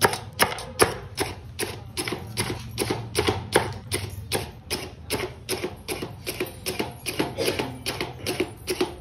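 Kitchen knife rapidly chopping onion fine, the blade knocking down in quick, even strokes about three to four times a second.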